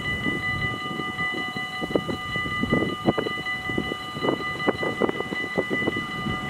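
Level crossing warning bell ringing steadily, with wind gusting on the microphone as a steam-hauled train approaches in the distance.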